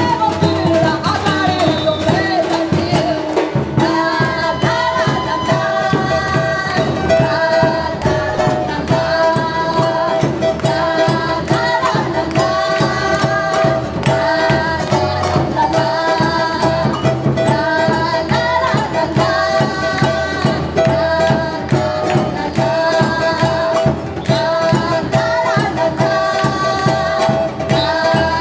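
Live samba band: women singing the melody over a batucada of surdo bass drums and hand percussion, at a steady, loud samba rhythm.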